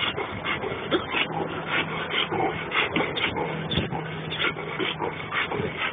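Police service dog breathing hard in irregular rasping strokes, several a second, with his ball in his mouth.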